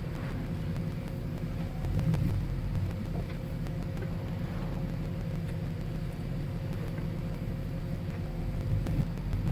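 Motor vehicle engine running steadily, a low rumble with a faint steady hum above it and a couple of louder bumps about two seconds in and near the end.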